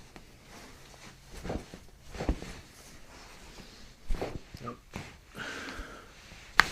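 Joints popping under a chiropractor's hands, likely the toes being cracked one by one: a few soft clicks and knocks, then one loud, sharp crack near the end.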